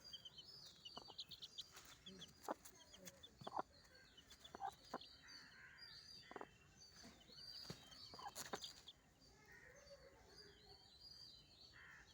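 A hen's brood of chicks peeping in many short, high chirps, with a hen clucking now and then and a few sharp clicks among them.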